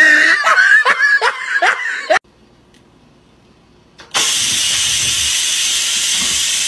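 Laughter for about the first two seconds. After a short low pause, an electric pressure rice cooker vents steam through its release valve with a loud, steady hiss, set off as a cat paws at its lid.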